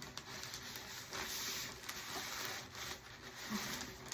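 Packaging rustling and crinkling as items are handled and fitted into a shipping package, loudest for a second or two in the middle, with a few small knocks.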